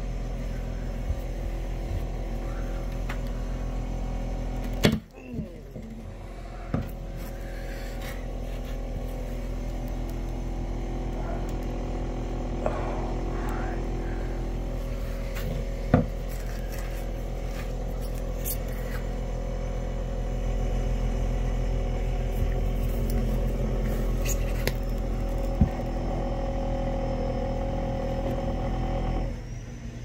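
A steady low mechanical hum with several held tones, which drops off sharply near the end, plus a few sharp knocks, the loudest about five seconds in and another about sixteen seconds in.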